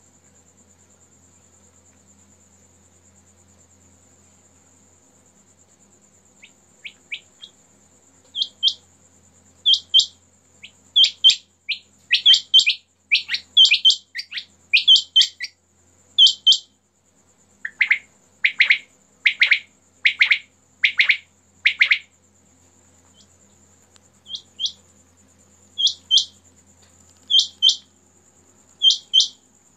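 Quail calling in short, sharp double notes, repeated every second or so from about six seconds in. A run of lower, fuller calls comes in the middle, then the double notes again near the end. A steady high-pitched trill runs underneath throughout.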